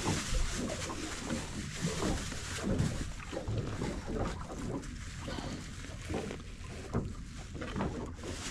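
Water slapping against the hull of a small boat with wind on the microphone, and small irregular knocks and rustles as squid bait is handled and cut on the bait board.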